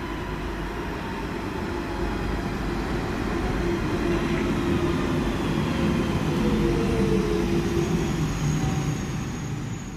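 London Underground 1992 Stock train pulling into the platform, getting louder as it nears, its motor whine falling in pitch as it slows. A thin high squeal joins in near the end as it draws to a stop.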